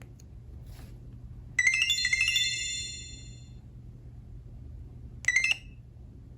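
Nokia 5610 XpressMusic alert tones played through the phone. About one and a half seconds in, a quick cascade of bell-like high notes rings out for about two seconds. A shorter burst of a few notes follows about five seconds in.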